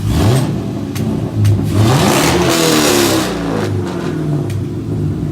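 Supercharged 6.2-litre LSA V8 of a second-generation Cadillac CTS-V revved through its newly installed exhaust: a quick blip right at the start, then a longer rev that rises and falls between about two and three and a half seconds in before dropping back to idle.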